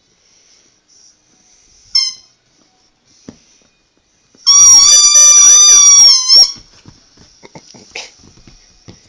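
Squeaky toy squeezed in a basenji puppy's jaws: a short squeak about two seconds in, then one loud, steady squeak lasting about two seconds. Soft clicks follow.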